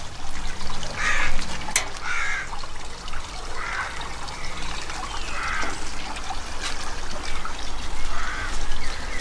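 A bird calling several times, short harsh calls spaced a second or two apart, over a steady low rumble.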